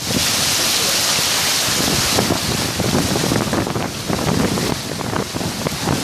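Heavy rain pouring down with a steady hiss, while strong gusts of wind buffet the microphone with an uneven low rumble.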